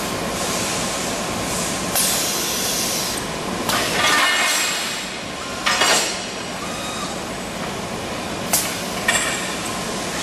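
CNC tube bending machine with automatic tube loader working: a steady hum and hiss broken by about five sharp metallic clanks and short hisses, some ringing on briefly.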